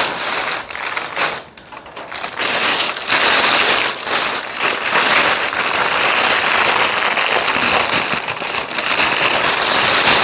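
Thin plastic delivery bag crinkling and crackling loudly as it is handled and pulled open, with a few brief pauses in the first couple of seconds.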